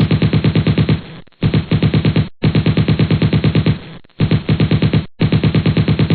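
Machine gun sound effect: automatic fire in about five bursts of roughly a second each, around nine or ten shots a second, with short gaps between bursts.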